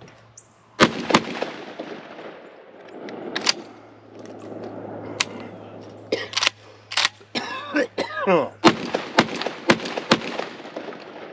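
FedArm FX4 Citadel Warthog semi-automatic shotgun fired in a string of about eight shots at uneven spacing, some in quick pairs and some after longer pauses. The action cycles each shell on its own with one hang in the string, the sign that the freshly welded operating rod is working again.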